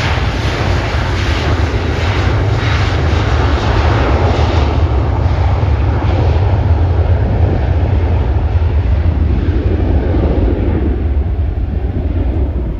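Two CFM56 turbofans of a Delta Boeing 737 running at high power as the jet speeds down the runway: a loud, steady jet rumble whose high-pitched hiss fades after about five seconds as it draws away.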